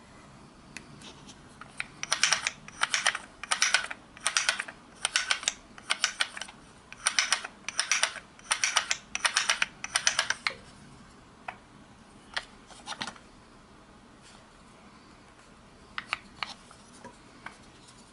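Hand-made wooden rubber band machine pistol's mechanism clicking and rattling in short bursts, about eleven in a row roughly one every 0.7 s, as it is worked in the hands. After that only a few scattered clicks.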